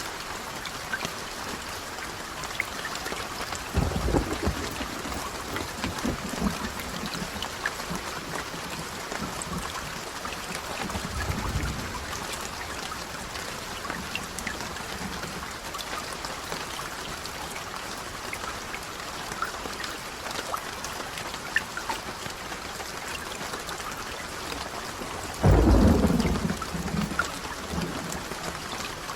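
Steady rain with drops pattering on a surface, and low rolls of thunder: two lighter rumbles about 4 and 11 seconds in, and a louder, closer clap about 25 seconds in.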